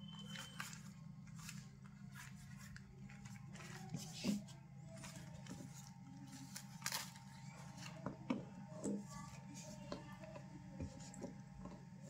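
Handling noise as a faux-leather drawstring pouch is opened and a lavalier microphone with its coiled cable is pulled out: rustling and small clicks, the sharpest about four and seven seconds in, with more clicks near the end, over a steady low hum.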